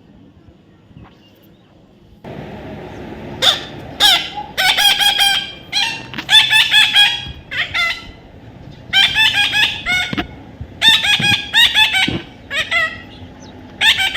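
A parrot calling loudly in a run of pitched squawks, in bursts of about a second made of quick repeated notes, starting a few seconds in.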